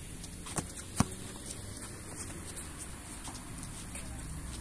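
A basketball bouncing on an outdoor concrete court: two sharp bounces about a second in, with the light patter of players' footsteps on the concrete.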